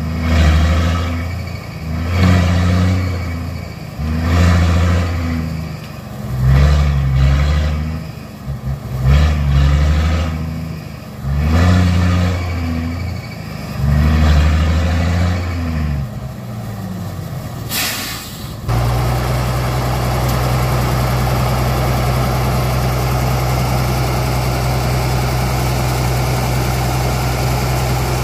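A vehicle engine revving in repeated short pulses, each rising then falling, about one every one and a half to two seconds. About eighteen seconds in there is a brief burst of hissing noise, after which the engine runs steadily at an even pitch.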